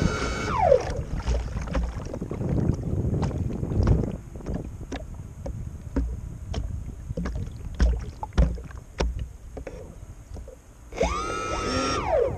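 Electric motors of a radio-controlled bait boat whining, then winding down in pitch just under a second in. Choppy water then slaps and knocks against the hull with wind buffeting the microphone. The motor whine rises again about eleven seconds in and drops back near the end.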